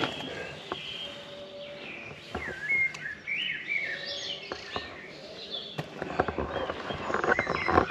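Songbirds singing, short warbling whistled phrases. Near the end, a quick run of crunches and knocks from footsteps on loose rubble.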